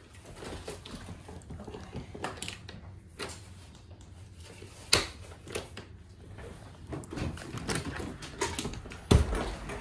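Handling noise of a phone being moved about in the hand: scattered knocks and clicks with rubbing and brushing against the microphone, two sharper knocks standing out about five seconds in and near the end.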